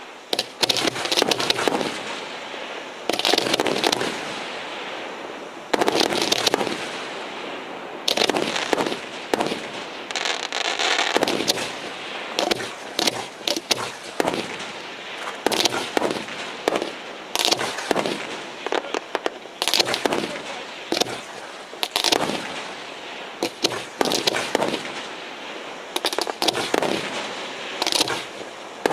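Aerial fireworks bursting over and over: sharp bangs every second or two, each fading out, with rapid runs of smaller pops between them.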